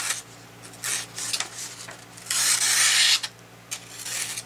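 A Buck Vantage Select folding knife's blade rasps as it is drawn through something in a sharpness test: a few short strokes, and a longer, louder one about two and a half seconds in. The blade is dull enough to need sharpening.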